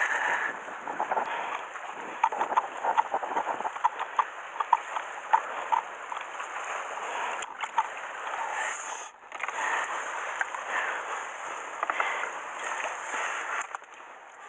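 Close handling noises of gloved hands working a freshly caught fish, with rustling of rain gear and many short clicks and taps. There is a brief break about nine seconds in.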